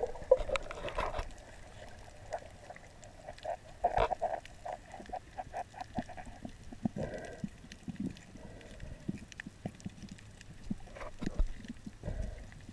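Muffled underwater knocks and clicks heard through a submerged camera, with a quick run of low, grunt-like pulses about four seconds in.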